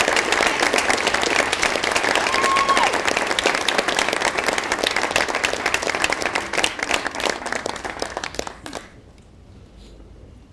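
A crowd applauding, dense clapping that thins and stops about eight and a half seconds in.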